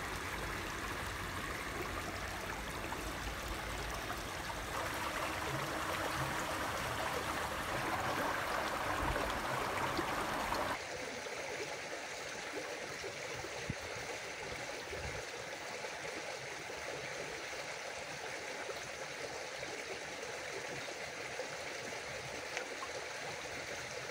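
Shallow stream running and trickling over its bed, a steady rush of water. It swells a little a few seconds in, then drops abruptly about eleven seconds in to a thinner, quieter flow.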